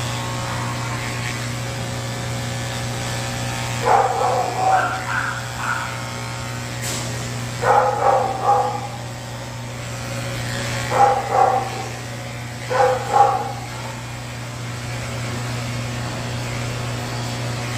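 Electric pet clipper running with a steady hum while shaving a matted Manx cat. The cat meows four times over it, in short calls a few seconds apart.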